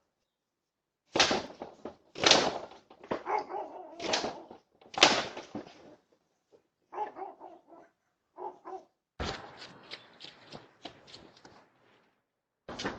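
A dog barking: about four loud, sharp barks in the first five seconds, then a few softer ones. After that comes a stretch of rapid clicking and rattling.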